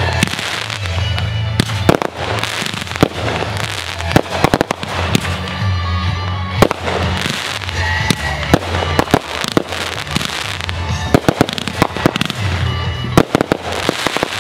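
Aerial fireworks bursting overhead in a rapid string of sharp bangs and crackles, several shots a second at the busiest points.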